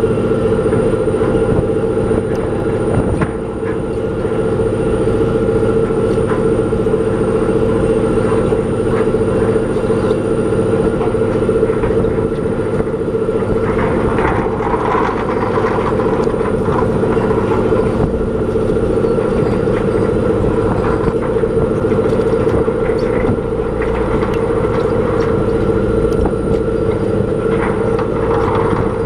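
Fishing boat's engine and hydraulic net-hauling machinery running steadily while a purse seine with floats comes aboard, a loud, even drone with a steady hum and a few light knocks around the middle.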